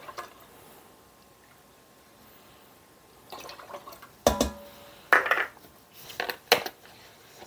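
Half-and-half pouring and dripping from a plastic measuring scoop into a pot of coconut milk, followed by a run of knocks and clatters as the scoop and carton are handled; the loudest is a sharp knock with a short ring a little after the middle.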